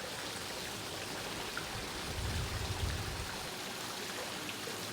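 Water splashing and lapping in a swimming pool as a child swims, with a brief low rumble about two seconds in.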